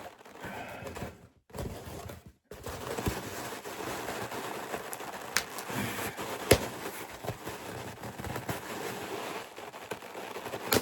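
Cardboard box being worked open with tweezers: crackling and scraping of cardboard and packing tape, with many sharp clicks and knocks.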